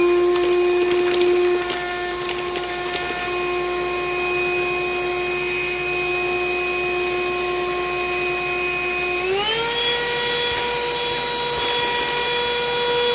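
Black & Decker Dustbuster cordless handheld vacuum running with a steady motor whine, rattling clicks of cereal being sucked in during the first few seconds. About nine seconds in, the whine steps up sharply in pitch and stays higher: the motor is speeding up as the nozzle jams with cereal and the airflow is choked off.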